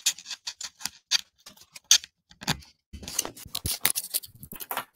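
Handling noise close to the microphone: a rapid, irregular run of small clicks, taps and rustles, in two busy stretches with a short pause between them, from earbuds being fitted to stop an echoing double audio feed.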